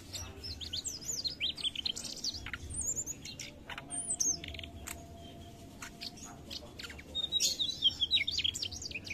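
Mugimaki flycatcher singing: rapid runs of high, quick chirps and trilled notes that rise and fall in pitch, with a lull in the middle and a louder run near the end.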